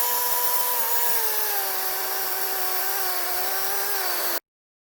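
Greenworks 40-volt battery chainsaw running as it cuts into a solid log. Its electric motor whine drops in pitch about a second in as the chain bites into the wood, holds steady under load, then cuts off suddenly near the end.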